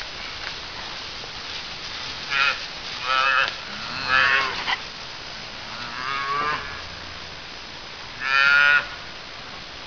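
Cattle mooing: about five separate calls, several wavering in pitch, the loudest near the end, one lower and deeper than the rest about four seconds in.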